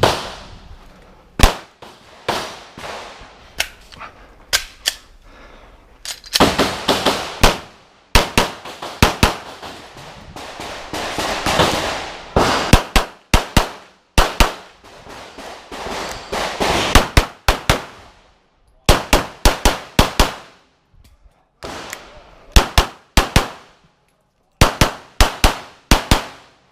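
Glock pistol firing an IPSC course of fire: fast strings of two to several shots, separated by short gaps, each shot with a short ringing tail.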